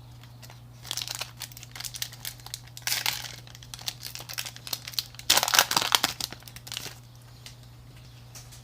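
Foil wrapper of a Pokémon card booster pack crinkling and tearing as it is opened, in irregular bursts, loudest about five to seven seconds in.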